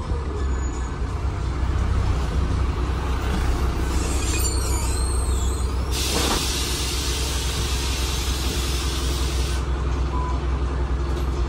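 Transbus Trident double-decker bus idling, heard from the lower deck as a steady low engine drone. About six seconds in, a sudden hiss of compressed air from the bus's air system starts and runs for about three and a half seconds before cutting off.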